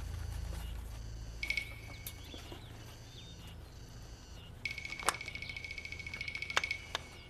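A bird's rapid trill on one high pitch: a short burst about a second and a half in, then a longer trill of about two seconds near the end. Under it runs a low steady rumble, and a few sharp knocks sound during the longer trill.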